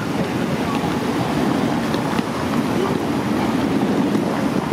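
Steady low rumble of a Siemens S70 streetcar moving away down the street, blended with city street noise.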